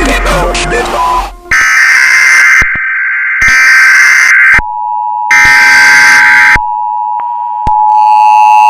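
Emergency Alert System alarm: three harsh, buzzing data bursts of about a second each, the alert's digital header, followed about halfway through by the steady two-tone attention signal, with a second layer of tones joining near the end.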